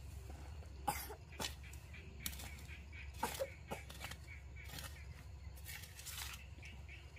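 A small metal shovel scraping and digging into loose garden soil and weeds, a series of short irregular scoops and scrapes.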